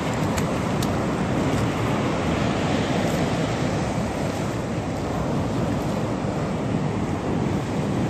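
Surf washing onto a sandy beach, a steady rush of waves, with wind rumbling on the microphone.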